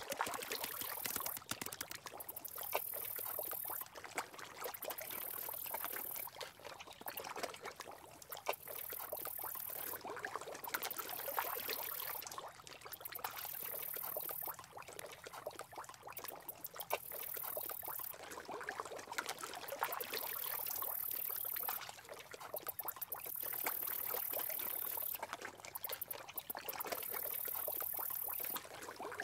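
Water trickling and babbling steadily, as of a small stream, made up of many fine splashing ticks, with brief dips in level every few seconds.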